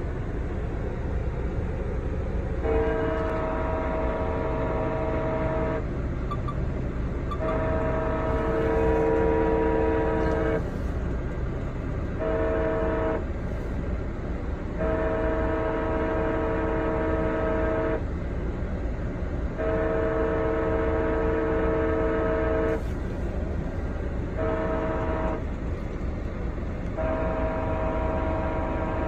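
Sounder commuter train's horn sounding for a grade crossing: a series of long chord blasts with two short ones among them, in the long-long-short-long crossing pattern, heard over a steady low rumble.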